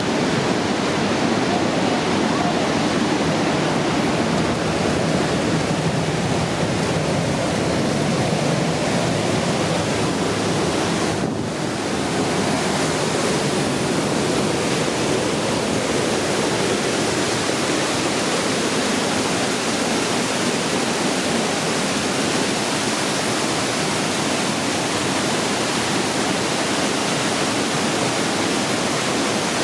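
Waterfall rushing: a loud, steady roar of falling water, with a brief dip in level about eleven seconds in.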